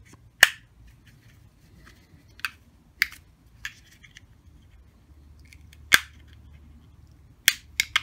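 Screwdriver prying at the plastic housing clips of a washing machine drain pump motor: a series of sharp plastic clicks and snaps, about seven in all, the loudest about half a second in and about six seconds in.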